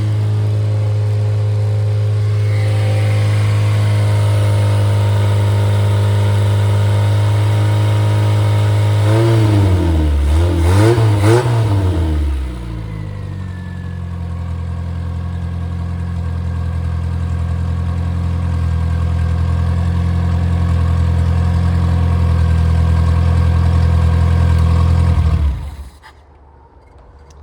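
Freshly rebuilt MG Midget/Triumph Spitfire 1500 four-cylinder engine running steadily at a fast idle, blipped up and down a few times about ten seconds in, then settling to a lower idle. It is shut off near the end and stops abruptly.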